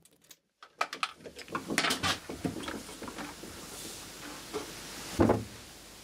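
Handling noises as wires and a wooden spark-gap stand are moved: scattered clicks and knocks, then a louder knock about five seconds in, with a faint hiss between.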